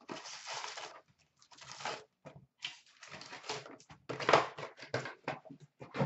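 The packaging of an Upper Deck SP Authentic hockey card box being torn open and crumpled by hand, in irregular crackling bursts, loudest about four seconds in, as the packs are pulled out and set down.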